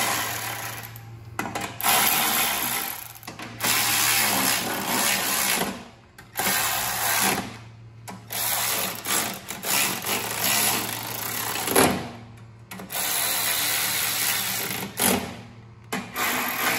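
Cordless quarter-inch electric ratchet whirring in repeated short runs of a second or two, with brief pauses between, as it drives in the bolts of a small engine's sheet-metal guard.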